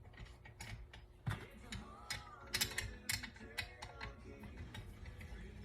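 Light metal clicks, taps and small knocks as a knife blade is fitted and adjusted in a bevel-grinding jig, scattered and irregular with a brief faint squeak or two.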